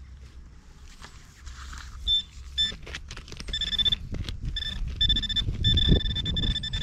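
Handheld metal-detecting pinpointer probe alerting in a dig hole: a high electronic tone comes in as two short beeps about two seconds in, then as longer beeps that run almost steady and grow louder toward the end, the signal of metal close to the probe tip. Under it, hands and the probe rustle and scrape in the loose soil.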